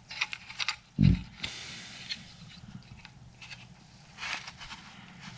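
Light clicks and scraping as a light bar and its mounting bracket are shifted into position, with a low thump about a second in.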